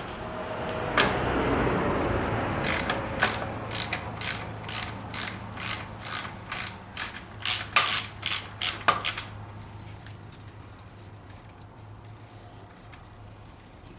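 Metal-on-metal work on an NP208 transfer case: a rough scraping rumble, then a run of sharp metallic clicks, two or three a second, that stops about two-thirds of the way through. A low steady hum lies underneath.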